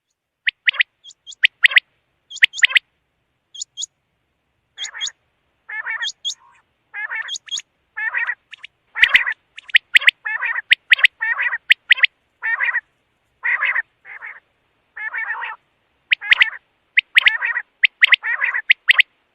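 Quail calling over and over: short, harsh buzzy calls, each a fraction of a second long, coming in quick runs with brief gaps, mixed with sharp high-pitched chips.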